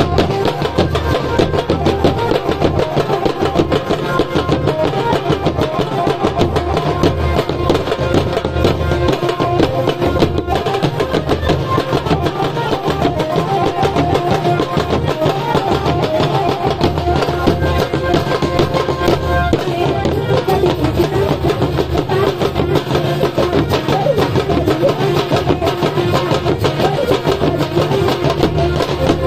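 Live folk dance music: a group of barrel drums and stick-struck frame drums keeps up a fast, dense beat, with a steady held melody sounding over it.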